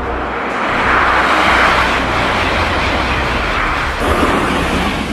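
High-speed train running past on the line, a loud rushing noise that swells about a second in and eases off, with a change in the sound at about four seconds.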